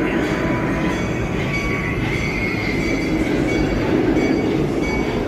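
Passenger train rolling along its track with a steady rumble and a thin, high steel-wheel squeal that swells about two seconds in.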